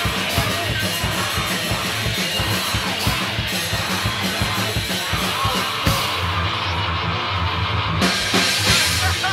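Heavy metal band playing live: fast drumming on a drum kit with guitar and bass. About six seconds in, the fast drumming breaks off into a held low chord, and a cymbal crash comes near the end.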